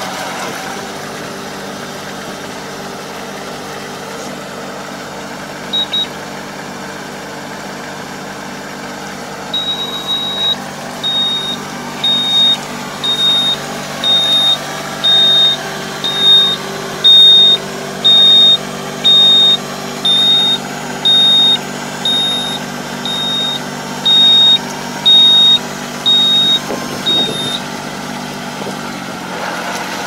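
Kubota KL270 tractor's diesel engine running steadily, with a high electronic warning beep: once about six seconds in, then repeating about once a second from about ten seconds in until near the end, while the Kobashi hydraulic harrow is raised and its wings folded.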